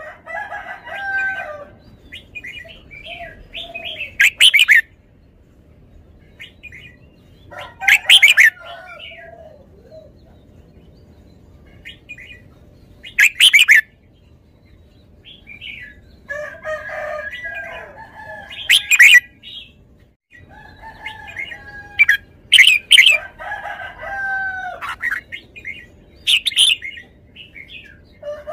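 Red-whiskered bulbul singing: loud, short, bright phrases every few seconds, with softer chattering warbles between them.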